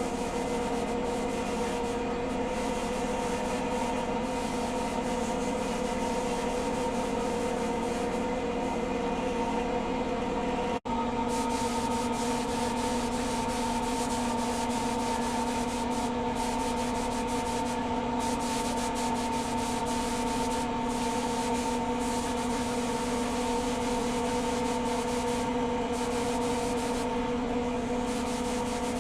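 Homemade coffee demucilager running: a steady motor hum under a continuous rubbing, scraping noise. The sound drops out for an instant about eleven seconds in.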